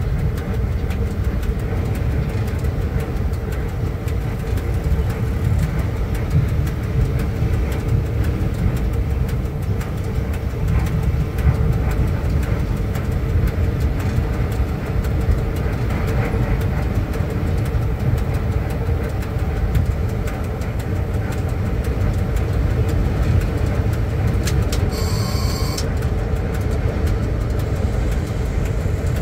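Inside the cab of a ChS4 electric passenger locomotive under way: a steady low rumble of the running gear on the track with a constant hum. Near the end a brief high-pitched tone sounds for under a second.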